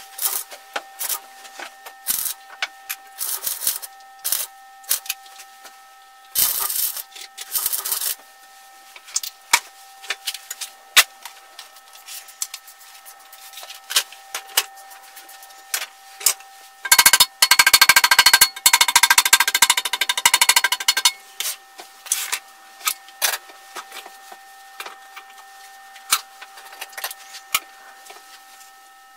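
Scattered clicks and knocks of metal parts and tools handled at a bench vise, then a crackling burst of arc welding lasting about four seconds, a little past halfway through. A faint steady tone sits underneath.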